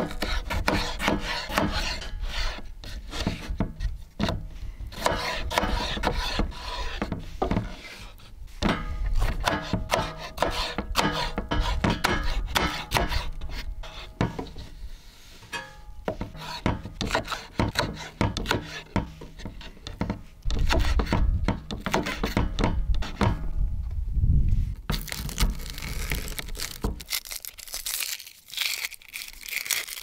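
Knife slicing through tomato and peppers on a wooden cutting board, with many irregular knocks of the blade against the board.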